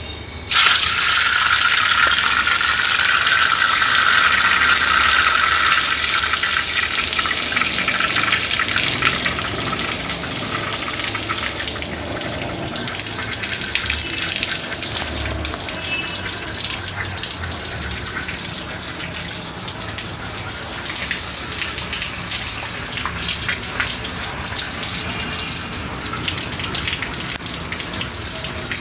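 Water gushing in a steady stream from the outlet of a digital hose tap timer, starting suddenly about half a second in.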